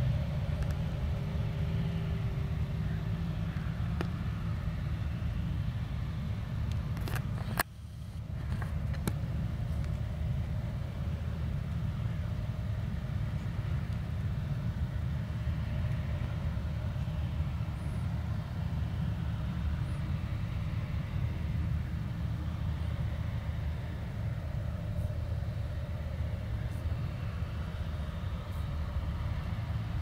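Claas Lexion 430 combine harvester running steadily while harvesting maize, a deep, constant rumble of engine and threshing gear. About seven and a half seconds in, a couple of sharp clicks and a brief drop in level.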